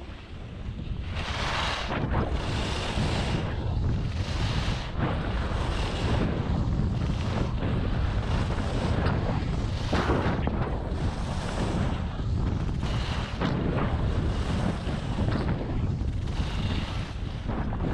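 Wind buffeting an action camera's microphone at skiing speed, getting louder over the first couple of seconds as the skier picks up speed. Over it, skis scrape and hiss on hard-packed snow in swells about once a second as the skier turns.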